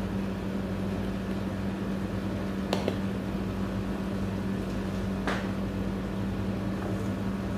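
Steady low machine hum, with two short clicks, the first a little before the middle and the second about two and a half seconds later.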